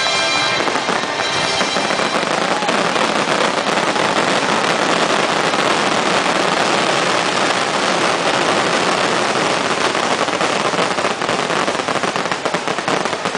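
Fireworks finale barrage: a dense, unbroken run of shell bursts and crackling stars. Orchestral music fades out in the first second. Separate bangs stand out more near the end.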